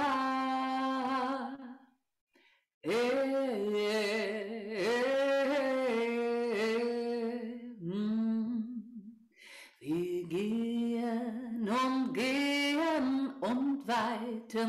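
A woman singing a slow, chant-like ritual song solo and unaccompanied, in long held notes. She breaks off briefly about two seconds in and again around nine seconds in.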